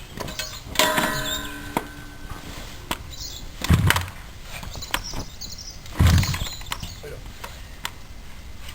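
Yamaha RD250LC two-stroke twin being kick-started. Two short, heavy low thuds about 3.7 and 6 seconds in, with light mechanical clicks between them; the engine does not catch.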